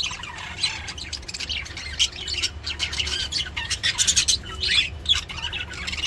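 A flock of budgerigars chattering: a dense, unbroken run of short, high chirps and squawks.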